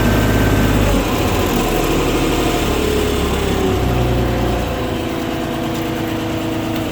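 Bobcat 553 skid steer's diesel engine running, its speed dropping in steps about a second in and again near four and a half seconds, with no knock now that the loose oil drain hose that slapped the chassis has been dealt with.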